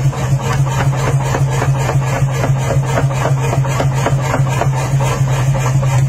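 Hand hammer striking a red-hot steel knife blade on an anvil, repeated blows, over a steady low hum.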